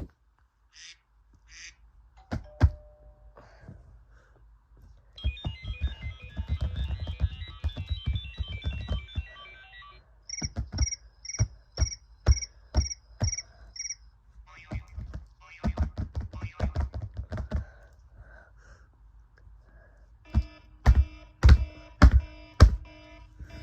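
Taps and knocks on a hard MacBook case mixed with iPhone ringtone melodies. A fast chiming pattern comes first, then a run of about eight evenly spaced beeps, then a rhythmic phrase of loud knocks with sustained tones near the end.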